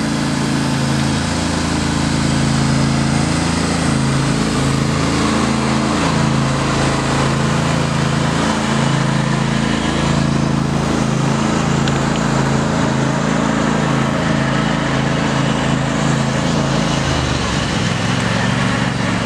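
John Deere riding lawn tractor's engine running steadily under way, its note dropping near the end.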